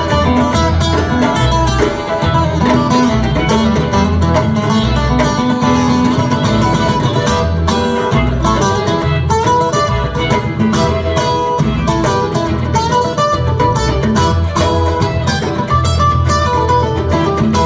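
Live rock band playing an instrumental jam, with electric guitar lines over bass and drums.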